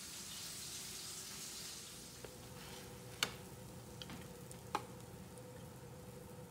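A soft hiss for about the first two seconds, then metal tongs clicking twice sharply against a foil-lined metal baking tray while picking up grilled pork pieces, with a few lighter taps and a faint steady hum underneath.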